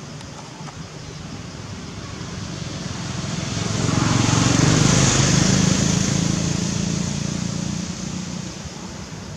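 A motor vehicle passing by: its engine hum and road noise swell from about two seconds in, are loudest around the middle, then fade away near the end.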